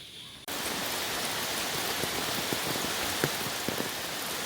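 Steady rain falling, with many individual drops heard as short sharp taps. It starts abruptly about half a second in, cutting off a faint steady insect trill.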